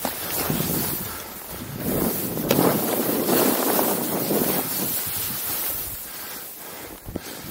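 Skis sliding and turning over snow, a hissing scrape that swells and fades with the turns, with wind rushing over the microphone.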